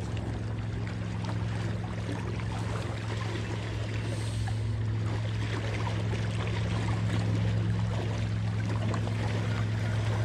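Lake water lapping against shoreline rocks over a steady low hum, with faint ticking from a spinning reel being cranked.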